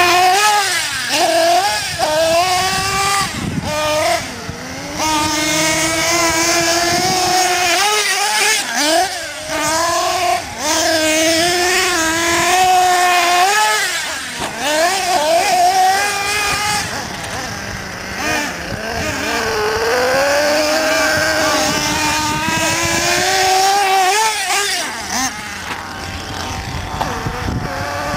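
Small glow-fuel engines of nitro RC trucks revving up and down over and over as they are driven, with a high-pitched buzz that drops briefly on and off the throttle.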